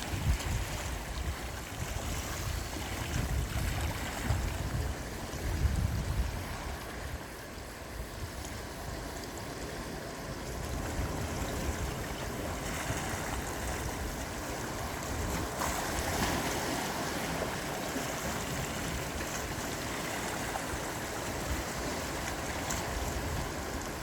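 Gentle sea waves washing and breaking, swelling a little in the middle, with low rumbling gusts in the first few seconds.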